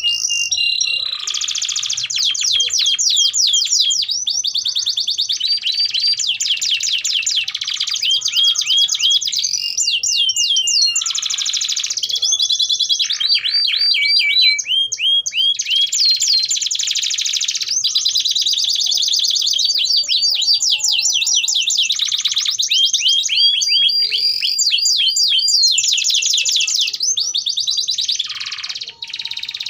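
Canaries singing a long, unbroken canary song of fast trills and rolled phrases, one phrase running straight into the next with only brief breaks.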